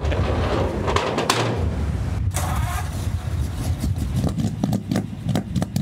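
The 1945 Ford fire truck's engine running, a steady low rumble with uneven pulses and a short break about two seconds in.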